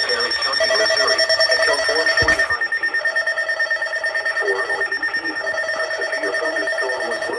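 Emergency Alert System alert tones for a severe thunderstorm warning: steady electronic tones with a rapid, ringing flutter, the lowest of them dropping out briefly a few times. A short click a little past two seconds in.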